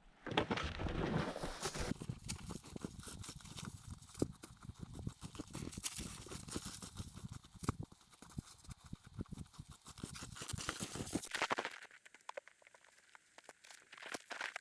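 Footsteps crunching through snow, a dense run of steps that stops about twelve seconds in and starts again near the end.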